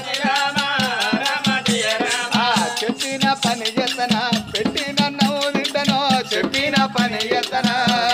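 Telangana Oggu Katha folk singing: a voice sings a winding melodic line over a barrel drum beat and a dense, steady jingling rattle rhythm.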